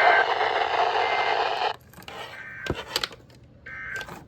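Weather radio receiver hiss and static. It cuts out about two seconds in, leaving near quiet with a few sharp clicks.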